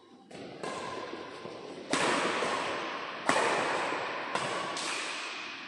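Badminton rackets striking a shuttlecock in a rally: about six sharp hits, roughly a second apart, each ringing out in a long echo through a large hall.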